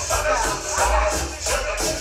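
Latin dance music played loud over a sound system: a gliding melody over a heavy bass beat and steady, quick high percussion.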